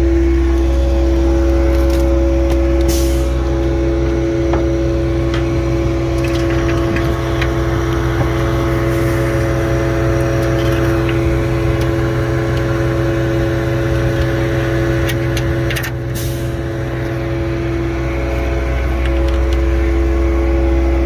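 Concrete boom pump truck's diesel engine running steadily, with a constant droning hum and a few light clicks.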